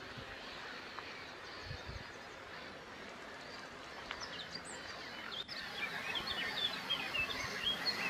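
Steady outdoor hiss with a few faint bird chirps, then from about five and a half seconds in many short bird calls overlapping.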